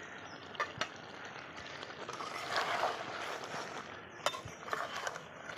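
Lid lifted off a cooking pot of chicken: a few sharp metal clinks and knocks near the start and again about four seconds in, with a brief noisy rustle between them.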